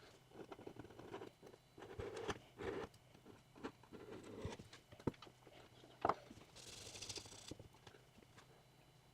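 Battery adhesive sticker being peeled off its plastic blister-pack backing and handled: soft rustling of plastic film with scattered light taps and clicks, a sharper click about six seconds in, then a brief crinkly hiss.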